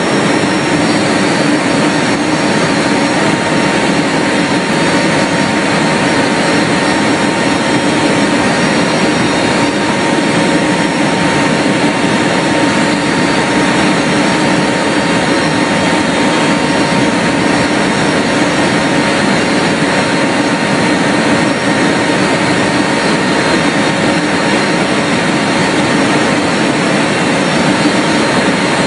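Military transport aircraft's engines and airstream in the cargo hold with the rear ramp open: a loud, steady drone with a constant hum over rushing air.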